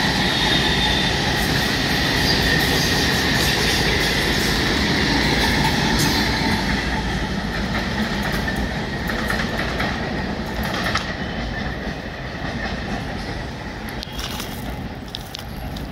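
Electric multiple-unit suburban local train running past on the rails: steady rumble of wheels with a high-pitched whine and clattering over rail joints. It fades as the train moves away, from about ten seconds in.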